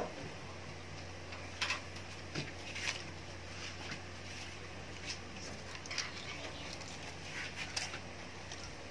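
A foil-wrapped block of cheddar cheese being unwrapped by hand: short, scattered crinkles and rustles of the foil over a low steady hum. A single sharp knock comes right at the start.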